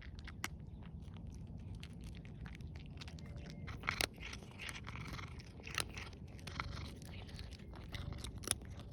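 Kittens eating dry cat food: faint, irregular crunching and clicks as they chew kibble.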